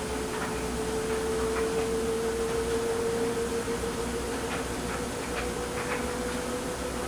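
Kenmore front-load washer in its rinse cycle making a steady 'eearhhh' whine that rises slightly in pitch, with a little light rattling: the unexplained new noise the owner hears during the rinse.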